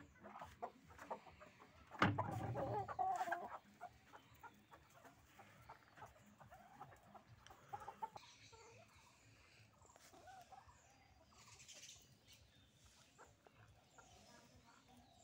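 Chickens clucking quietly on and off, with a rooster among them. About two seconds in, a much louder harsh sound lasts about a second and a half.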